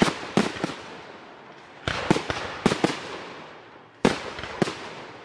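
Aerial fireworks shells bursting in sharp bangs, in three groups of two or three about two seconds apart, each group trailing off as it fades. The display heralds the start of the carnival parade.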